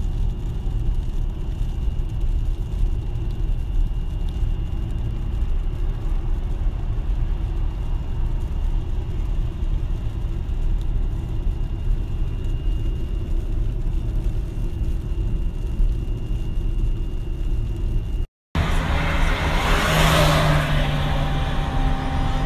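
Steady road and engine rumble heard inside a car driving on a wet highway. About eighteen seconds in it drops out briefly and a different recording takes over.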